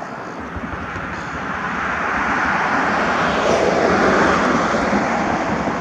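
A steady rushing noise that swells gradually, peaking about four seconds in and easing slightly afterwards.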